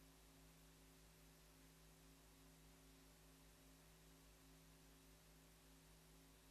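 Near silence: a faint steady electrical hum with a low hiss.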